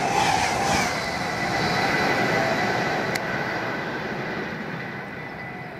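Express passenger train passing at speed close by, its last carriages rushing past with a rhythmic surge about twice a second, then the noise dying away with a thin steady whine. A single sharp click about three seconds in.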